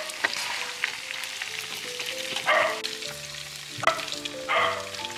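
Marinated chicken pieces frying in hot oil in a pan: a steady sizzle with stirring. Faint background music runs underneath, and a few short, louder sounds come about two and a half, four and four and a half seconds in.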